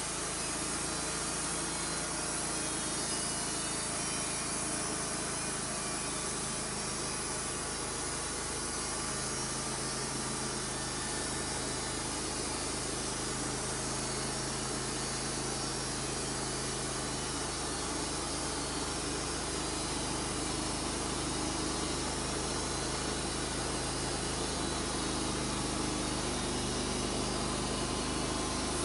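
Wood-Mizer LT35 hydraulic band sawmill running steadily, its engine and band blade sawing through a Douglas fir log.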